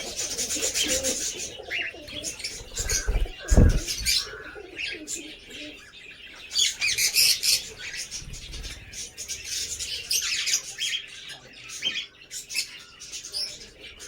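Lovebirds chirping and chattering in rapid, high, overlapping calls, with a single low thump about three and a half seconds in.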